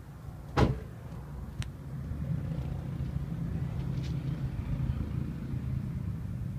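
One sharp thud about half a second in. Then the low exhaust rumble of the Jeep Wrangler's 3.6-litre V6 at idle, through a Magnaflow muffler and a Dynomax unit in place of the factory resonator, growing louder from about two seconds in and holding steady.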